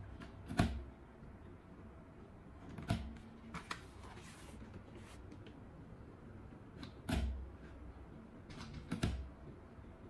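Handling sounds from hand repair work: five or so sharp clicks and knocks a few seconds apart, the loudest about half a second in, with a short rustle near the middle.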